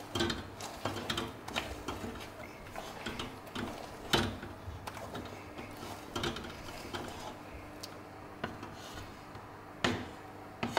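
A flexible spatula stirring and scraping risen yeast batter in a stainless steel mixer bowl, knocking the air out of it, with irregular clicks and knocks of the spatula against the metal. The loudest knocks come about four seconds in and just before the end.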